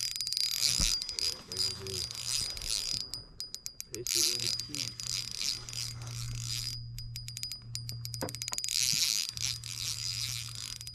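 Fishing reel being cranked while reeling in a hooked fish, a whirring hiss broken by runs of rapid clicking.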